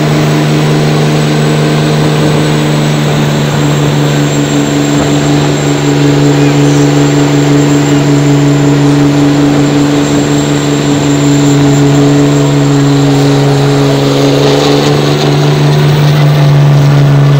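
Speed race truck doing a burnout: its diesel engine is held at steady high revs in a loud, even drone while the rear tyres spin on the asphalt.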